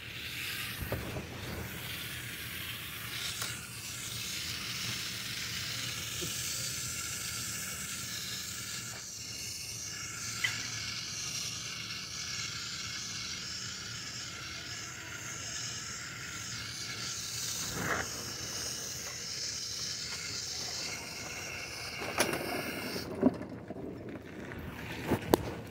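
Water spraying from a garden hose in a steady hiss, which stops near the end and gives way to a few knocks and bumps.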